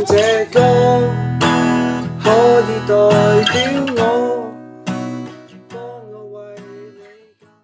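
Background music: acoustic guitar strumming slow chords under a held melody line, fading out toward the end.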